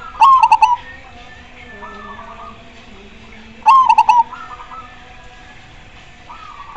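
Zebra dove (perkutut) singing: two loud phrases of quick, broken cooing notes about three and a half seconds apart, with fainter coos of other doves answering in between.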